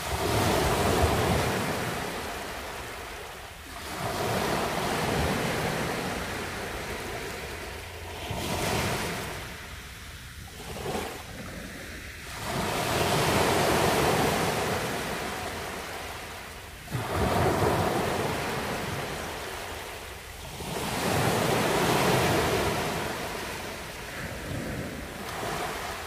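Small sea waves breaking and washing up a sandy beach. Each wave is a rush of surf that swells and then fades away, about every four seconds.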